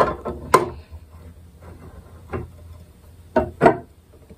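Wooden knocks as an acoustic guitar's neck heel is pressed and rocked in the body's dovetail joint during a dry fit: about five sharp knocks, two close together near the end, with a short ring from the hollow body. The neck is binding in the joint and won't seat down.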